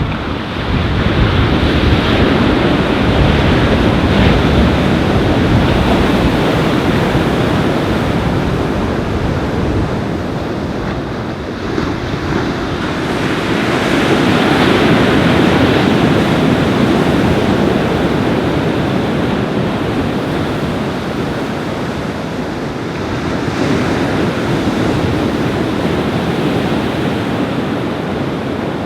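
Surf breaking on a beach, with strong wind buffeting the microphone; the rush of noise swells and eases in slow surges every ten seconds or so.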